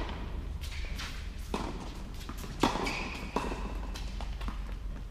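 Tennis ball being struck by rackets and bouncing on an indoor hard court during a rally: several sharp knocks spaced about a second apart, over a steady low hum.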